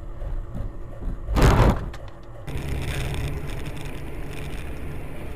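Car cabin engine and road noise heard through a dashcam, with one loud, half-second crash about a second and a half in, typical of a vehicle collision. About a second later it gives way to a different car's steady road noise.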